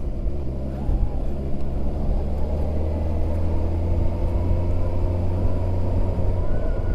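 Sport motorcycle engine running steadily at a low, even speed, with a strong low hum and no revving.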